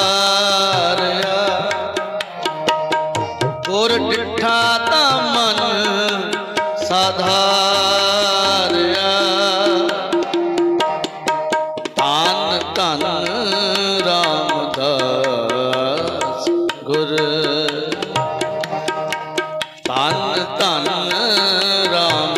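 Shabad kirtan music without sung words: a wavering, ornamented melody line over a steady tabla rhythm.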